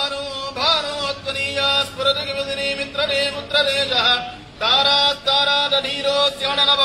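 Male chanting of Sanskrit mantras in a steady, sung recitation held largely on one pitch, with a brief pause for breath about four seconds in.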